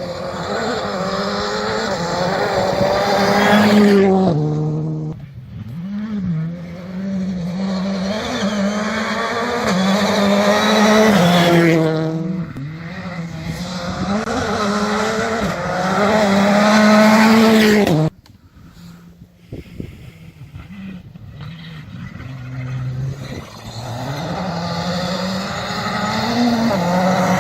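Rally cars at full speed on a special stage. The engine note climbs and drops repeatedly through gear changes, and tyres squeal. Several loud passes break off abruptly, about four and eighteen seconds in, and after a quieter spell another car builds up loud near the end.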